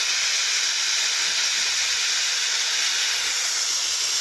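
Gas cutting torch hissing steadily as the flame and cutting-oxygen jet burn through metal.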